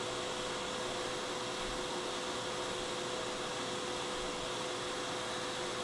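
Hot air rework station blowing on its highest air and temperature setting while desoldering a chip: a steady airy hiss with a faint constant hum.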